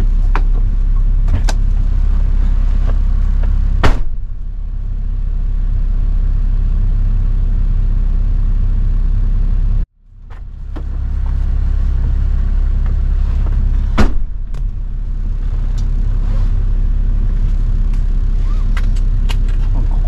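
Toyota Land Cruiser 70's 1HZ straight-six diesel running steadily while driving on a dirt road, with a few sharp knocks, loudest about four seconds in and again near fourteen seconds. The sound cuts out suddenly about halfway through and builds back over a second or so.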